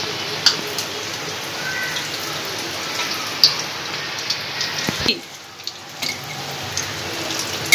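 Hot oil sizzling steadily around batter-coated potato slices deep-frying in a kadhai, with scattered sharp pops and ticks. The sizzle dips for about a second near the middle, then comes back.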